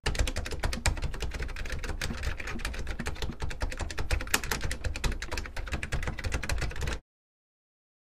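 Computer keyboard typing sound effect: a rapid, dense run of key clicks with a low rumble underneath, cutting off abruptly about seven seconds in.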